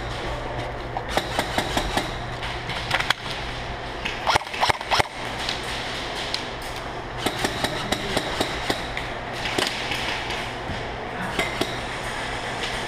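Scattered sharp pops and knocks of airsoft gunfire, with a short quick burst about four and a half seconds in, over a steady low hum.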